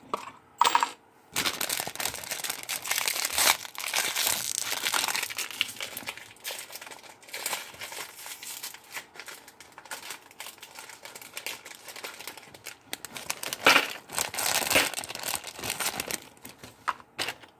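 Plastic parts bag crinkling and rustling as hands rummage through small Meccano screws and pieces, with a louder burst of crinkling near the end.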